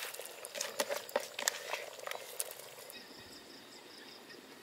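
Pot of curry bubbling, with irregular sharp pops and clicks as chopped spring onions drop in. About three seconds in this gives way to quieter outdoor sound with a faint, high, pulsing animal call.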